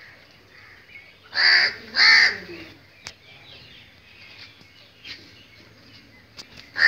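Two loud, harsh bird calls in quick succession about a second and a half in, with a third starting right at the end. Fainter bird chirps sound in between.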